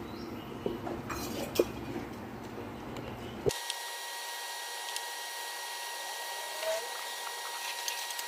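Hands squishing and mixing sliced potatoes in gram-flour batter in a steel bowl, with a few sharp knocks. About three and a half seconds in this gives way abruptly to a steady sizzle with crackles: potato pakoras deep-frying in hot oil in a wok.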